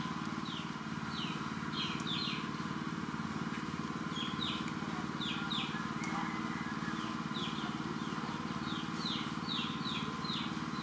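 Birds chirping: short notes sliding downward, coming in irregular runs of one to three a second, over a steady low mechanical hum.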